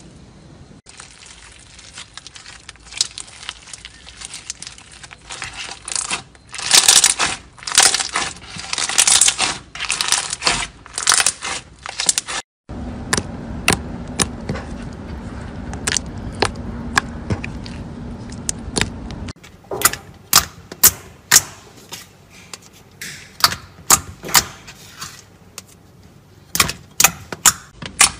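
Crunchy slime pressed with a wire masher, crunching and crackling in dense bursts. About halfway through, a glossy slime is squished over a low steady hum. For the last third, clear slime is poked and stretched by fingers, giving sharp popping clicks.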